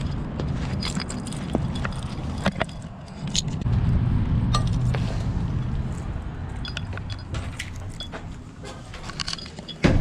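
Keys jingling and clinking while walking, over a low rumble of movement, with one louder knock near the end.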